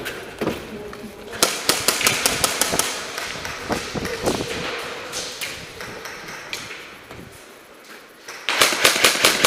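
Airsoft rifle firing two rapid bursts of sharp clicking shots, about six a second: one starting about a second and a half in, the other near the end.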